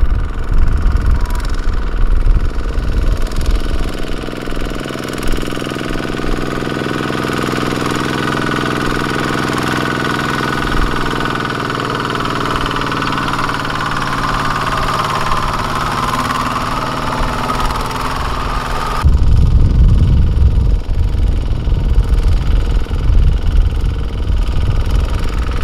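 Kubota ZT140 single-cylinder diesel engine of a two-wheel walking tractor running steadily under load as it pulls a loaded trailer through mud. About three-quarters of the way in, the sound changes abruptly to a deeper, uneven rumble.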